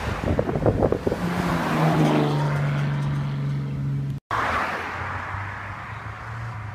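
Old Japanese car with a loud aftermarket muffler accelerating past: uneven exhaust pulses, then a strong engine note that drops in pitch as it goes by. After an abrupt cut, a quieter engine is heard from further off under wind noise.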